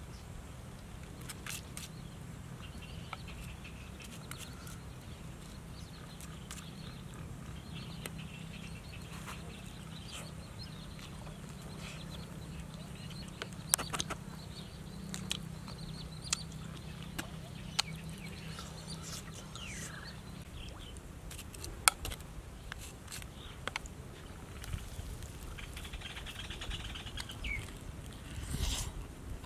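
Roasted catfish on a bamboo skewer being handled and torn apart by hand: scattered small clicks and crackles, then a bite near the end, over a steady low hum and faint bird chirps.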